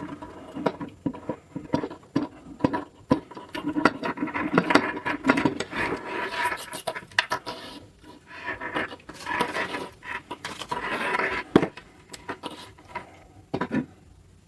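A high-voltage probe and its leads being handled: scraping and rubbing with many small clicks and knocks.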